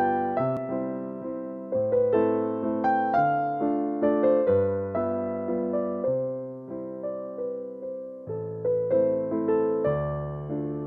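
Background music: a gentle keyboard tune, with struck piano-like notes that fade, playing a melody over slow bass notes.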